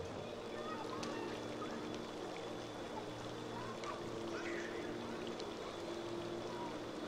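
Outdoor city background: a steady low hum with a few faint short chirps.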